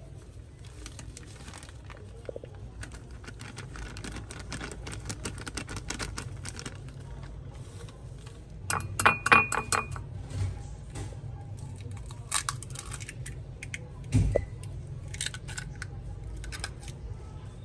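Plastic bag crinkling as pancake mix is poured from it into a glass bowl, then a cluster of sharper clicks and clinks on the glass bowl about halfway through as an egg is cracked into it, with a steady low hum underneath.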